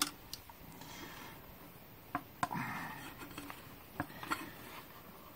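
Handling noise from the air-cleaner housing being lifted off a carburettor and moved around: several light clicks and knocks with brief rustling and scraping between them.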